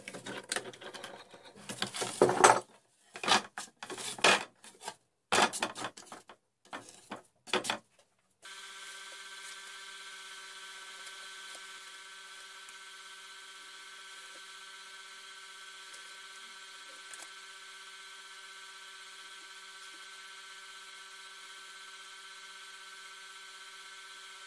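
Hand tool scraping the edges of drilled holes in a plywood panel, in short irregular strokes, for about eight seconds; then a faint steady hum with several held tones.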